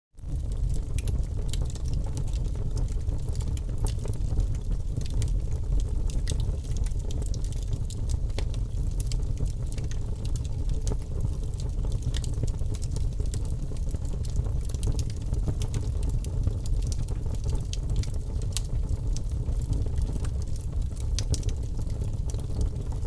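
Fire burning: a steady low roar with many scattered sharp crackles and pops, starting abruptly just after a moment of silence.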